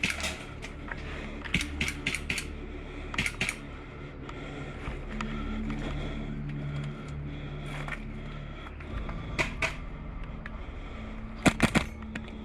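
Airsoft gas blowback submachine guns firing short bursts of sharp clacks, two to four shots at a time, in irregular spurts with a flurry near the end.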